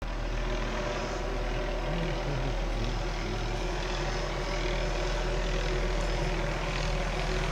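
Helicopter flying overhead: a steady drone of rotor and engine.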